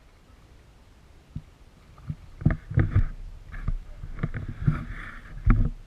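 Irregular knocks and thumps on a small fishing boat, mixed with splashing, starting about two seconds in.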